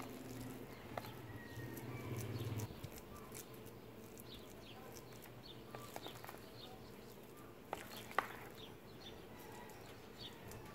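A spoon spreading mashed ripe plantain in a glass baking dish, with a few faint clicks of metal on glass, about a second in and twice near the eight-second mark. Faint bird chirps come and go throughout, and a low hum sounds for the first two or three seconds.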